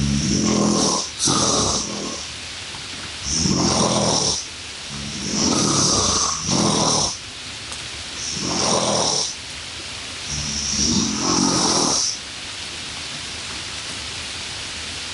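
Snoring-like rasping breaths, about a second each and coming every one to two seconds, some in quick pairs, over a steady hiss like rain.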